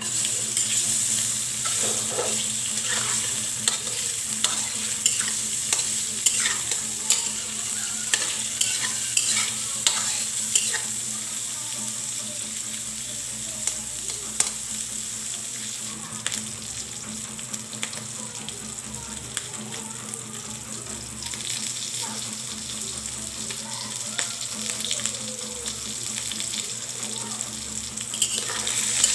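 Food sizzling in hot oil in a kawali (wok-style pan), with a spatula clicking and scraping against the pan as it is stirred, the clicks thickest through the first half.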